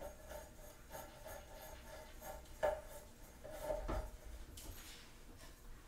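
Metal pole being screwed by hand into the wooden base of a carousel rod rack: faint rubbing and scraping of the threads as it turns. A few light clicks and knocks come through, the loudest about two and a half seconds in and just before four seconds.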